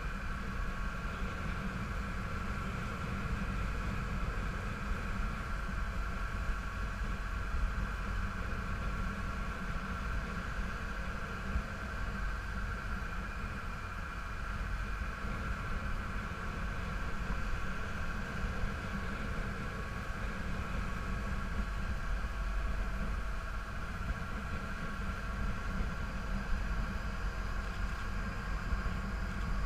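A motor boat's engine running steadily under way, a constant drone with a steady higher tone above it, along with the rush of water against the hull.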